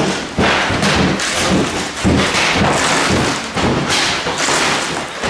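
Hand demolition with hammers and crowbars: a rapid, irregular run of heavy thuds and crashing knocks as wall material is broken out.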